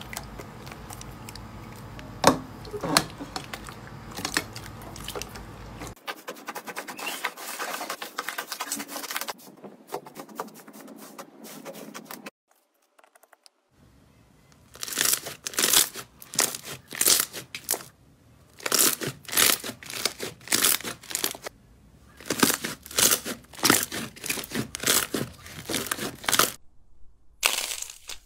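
Hands squishing, pressing and poking slime, with sticky, wet crackling and popping. After a brief silent gap near the middle, the crackling comes in repeated short bursts, one or two a second, as the slime is pressed and let go.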